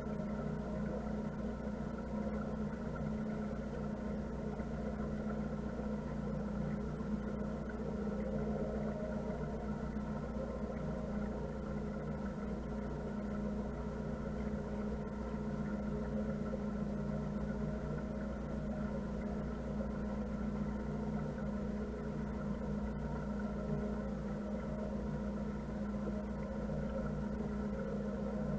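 Motor cruiser's engine running steadily at slow speed, an even, unchanging hum.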